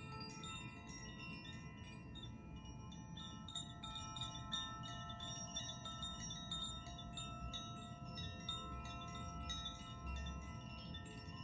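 Hand-held tuned chimes (Koshi-type meditation chimes) ringing continuously as the clapper inside strikes the tuned rods again and again. Many bright pitches overlap and sustain, with fresh light strikes throughout.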